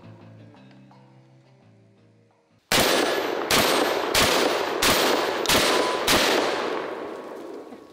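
Panzer Arms M4 12-gauge semi-automatic shotgun fired six times in rapid succession, about a shot and a half per second, each report echoing off the surroundings. Soft background music fades out just before the first shot.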